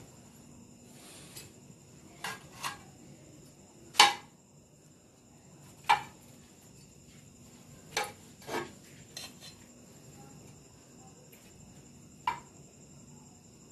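Sharp metal clinks on a steel serving tray as fried kababs are set down on it one by one, about eight at irregular intervals, the loudest about four seconds in.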